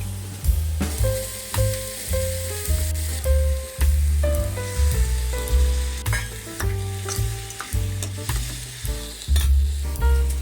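Food sizzling and being stirred in hot oil in a pan, with crackles and spoon clicks over the hiss. Background music with a stepping bass line plays throughout.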